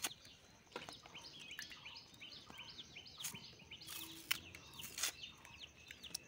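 Small birds chirping over and over in quick short notes. Several sharp clicks and knocks cut through, the loudest a little after four seconds and at five seconds: a green banana being sliced on a boti blade and the pieces set down in a steel bowl.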